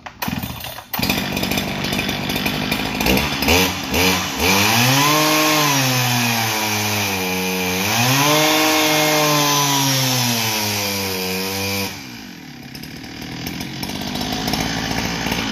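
Farmertec G395XP chainsaw, a Chinese clone of the Husqvarna 395XP two-stroke, starts about a second in and is blipped a few times. It is then held at full throttle against the dyno brake for several seconds, its pitch sagging and recovering under the load, before dropping back to idle near the end.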